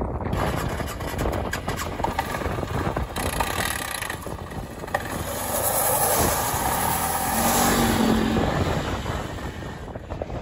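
Arctic Cat 550 ATV's single-cylinder four-stroke engine running as the quad pulls away over gravel, with tyres crunching on the stones. The engine note rises and grows louder about halfway through as it accelerates, then fades toward the end as the quad moves off.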